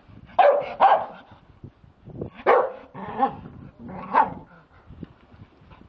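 Staffordshire bull terrier barking: a quick pair of loud barks, then three more over the next two seconds.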